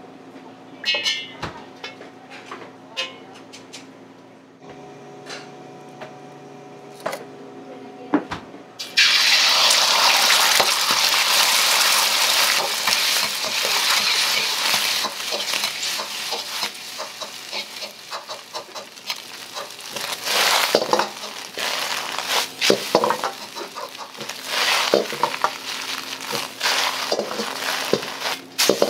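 Beaten egg hitting hot oil in a wok, bursting into a loud sizzle about nine seconds in, then frying steadily while a steel ladle stirs and scrapes it with frequent clanks. Before that, only scattered clinks of the ladle against the woks.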